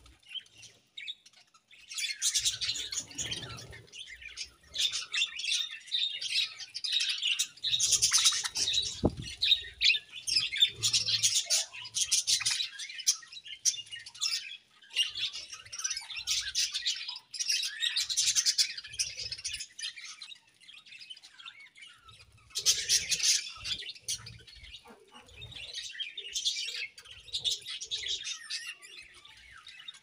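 A flock of budgerigars chirping and warbling together in a dense, busy chatter that starts about two seconds in, with a short lull a little past the middle.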